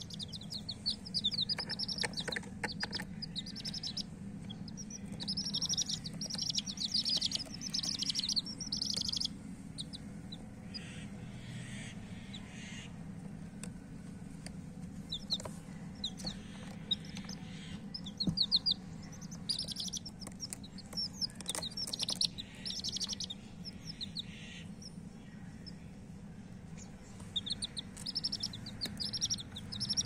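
Baby chicken chicks peeping: clusters of rapid, high-pitched chirps that come and go, with two quieter spells, over a steady low hum.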